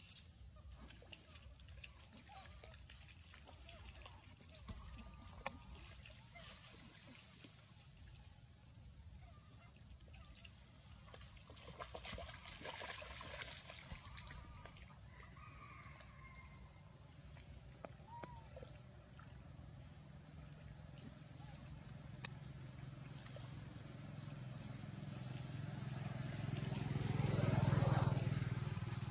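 Steady high-pitched drone of insects, with a few faint clicks. Near the end a low rumble swells up and fades away.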